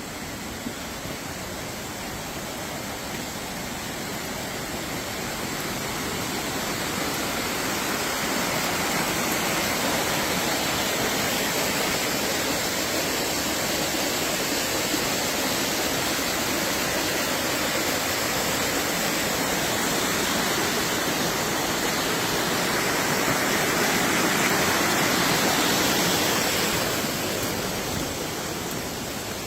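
Rushing water, a steady hiss that grows louder over the first several seconds, swells a little near the end and then eases off.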